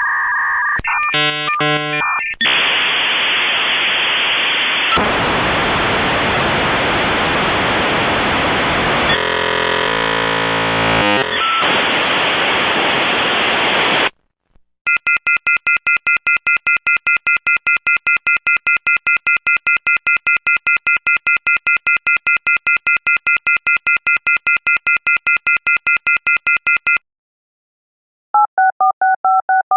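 A run of telephone line sound effects: a quick series of stepped keypad-like beeps, then a long stretch of steady line hiss with shifting tones partway through, like a modem or fax connection. After a brief break comes a fast pulsing three-tone trill for about twelve seconds, and near the end a warbling telephone ring begins.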